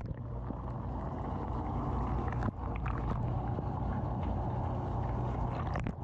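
Inside a running dishwasher: the wash pump hums steadily under a constant wash of water spray hitting the racks and the camera, muffled by a waterproof camera housing. The sound shifts abruptly about two and a half seconds in and again near the end.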